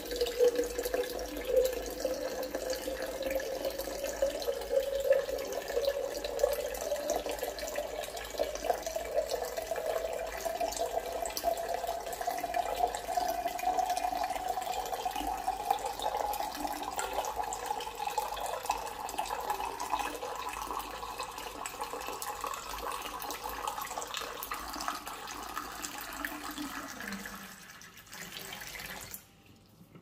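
Water poured in a thin stream from a plastic bottle into a glass jug, the splashing rising steadily in pitch as the jug fills. The pour stops near the end.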